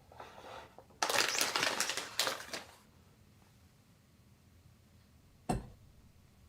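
Packaging crinkling and rustling for about two seconds, then a single sharp tap or knock near the end.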